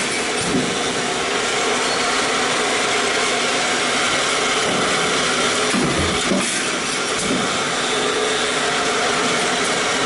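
Sheet-metal stamping press running a progressive deep-drawing die: a steady machine noise with a few soft knocks, one near the start and two about six to seven seconds in.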